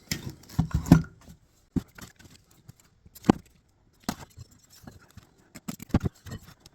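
Irregular knocks and light clatter, a handful spread over several seconds, from wooden boards being handled and set down; no saw is running.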